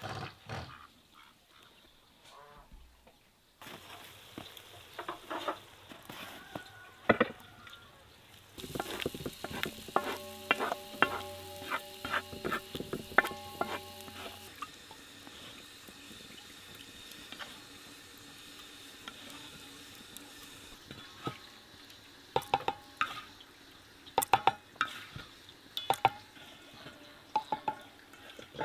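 A tomato mixture sizzling on a hot sadj griddle while a wooden spatula stirs and scrapes it across the metal, with many sharp clicks and scrapes over a steady sizzle. Sharper taps come in quick clusters near the end.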